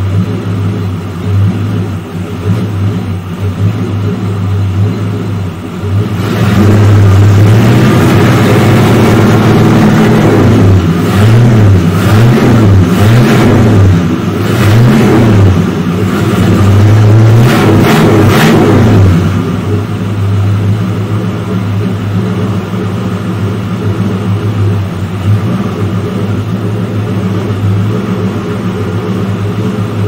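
Ford 351 Cleveland V8 with a Holley four-barrel carburettor, freshly started on fuel from its newly refitted tank, idling. It is revved by hand at the engine bay several times between about six and nineteen seconds in, the pitch rising and falling with each blip, then settles back to a steady idle. It runs with a slight miss that the owner hopes will clear up.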